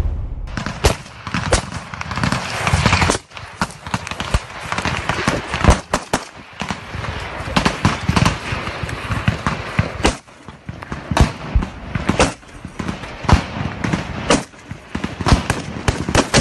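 Small-arms gunfire: dozens of sharp shots at irregular intervals, roughly one or two a second, sometimes several close together, over a steady rushing noise.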